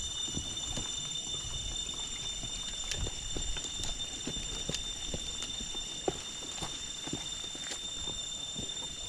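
Footsteps on a stone and dirt forest trail, about two steps a second, under a steady high-pitched drone of several tones.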